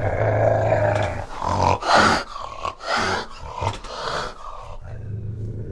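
Cheetah vocalizing: a low continuous rumble, broken by several short, harsher bursts in the middle.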